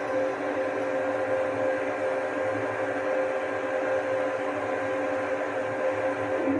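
CNC diode laser cutter running a cut in its exhaust-vented enclosure: a steady mechanical hum with a few held tones, from the exhaust fan and the machine's motors.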